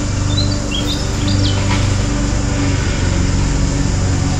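A few short, high bird chirps in the first couple of seconds, over a steady low hum.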